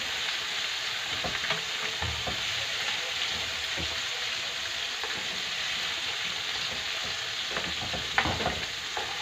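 Breaded sardine pieces sizzling in hot oil in a frying pan, with a few light clicks of a utensil against the pan as they are turned, the sharpest about eight seconds in.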